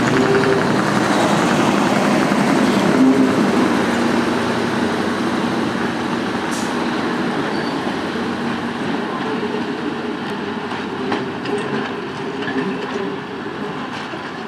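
Two-car Class 127 diesel multiple unit moving away, its engines running and its wheels on the rails, fading steadily as it draws off.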